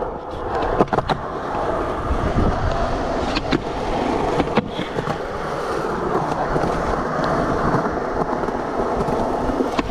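Skateboard wheels rolling on smooth concrete, with sharp clacks of the board about a second in. Around three and a half seconds the board pops onto a concrete ledge and grinds along it briefly, then lands with another clack before rolling on.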